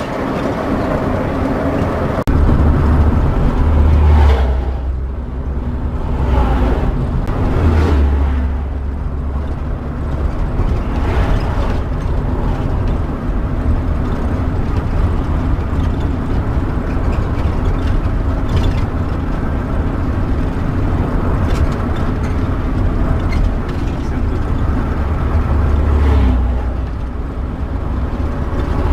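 Cab noise of a converted-bus motorhome driving along a highway: steady engine and road rumble, with a few brief louder swells.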